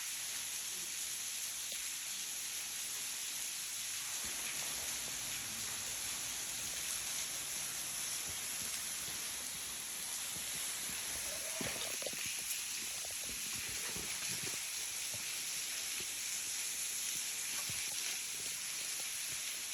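Small waterfall splashing steadily onto rocks, an even hiss of falling water.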